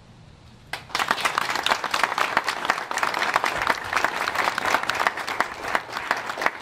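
Audience applauding, breaking out suddenly less than a second in.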